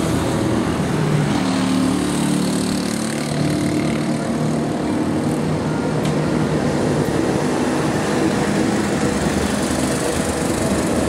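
Road traffic passing close by: a small motorcycle engine running steadily in the first few seconds, over constant road noise.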